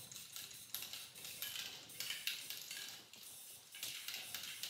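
Aerosol spray paint can hissing in several short bursts as paint is sprayed on.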